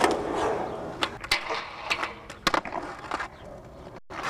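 Skateboard wheels rolling on hard ground, with several sharp clacks of the board striking the ground. Near the end the sound cuts out completely for an instant.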